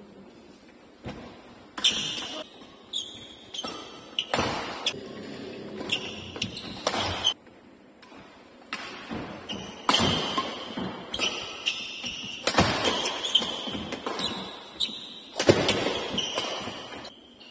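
Men's doubles badminton rally: sharp racket strikes on the shuttlecock, short shoe squeaks and footsteps thumping on the court floor, with a couple of brief lulls between rallies.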